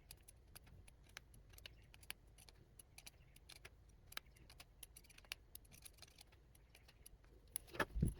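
Faint, irregular light clicks and ticks of small tools and hardware being handled while screws on a quadcopter frame are tightened, with a couple of louder knocks near the end.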